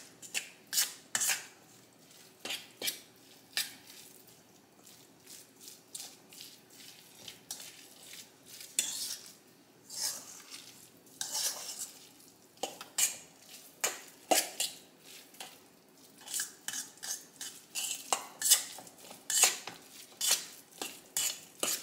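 A fork clinking and scraping against a stainless steel mixing bowl as a thick mixture of flaked salmon, egg and flour is stirred and mashed together. The clicks come irregularly, in quick runs with short pauses between them.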